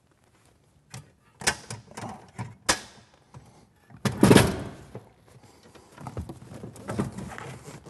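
A seat and its metal mount being handled and set into a Jeep Wrangler YJ's floor: a few sharp knocks and clicks, then a louder scraping thud about four seconds in, followed by rustling and shuffling.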